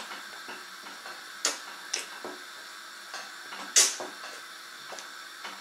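A handful of short, sharp clicks and light taps, about five in all, the loudest nearly four seconds in, over a faint steady hum.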